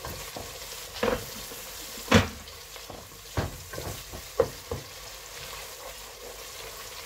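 Wooden spoon stirring and scraping a masala of tomato and spices frying in a non-stick pot, over a steady sizzle. About five sharp knocks of the spoon against the pot stand out, the loudest about two seconds in.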